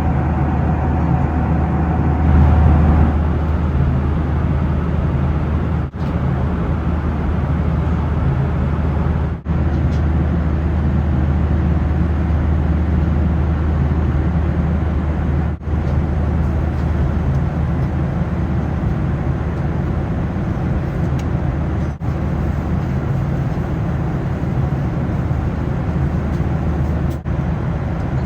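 Steady cabin noise of a Boeing 737-800 in cruise: a deep hum from the engines and airflow with a rushing hiss on top. It is broken by five very short dips.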